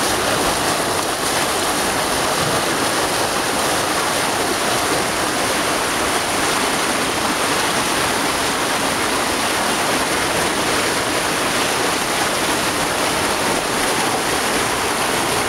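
Monsoon-swollen river in flood, its muddy, turbulent water rushing with a steady, unbroken roar.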